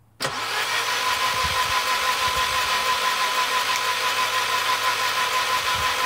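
Car engine cranked over on its starter motor without catching, with a steady whine through the cranking, to fire a coil-over-plug unit for a test spark across a widened spark plug gap. It starts suddenly and stops after about six seconds.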